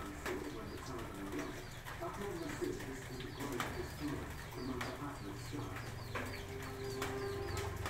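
Doves cooing over and over, low wavering notes, against a steady hiss of rain with scattered drips.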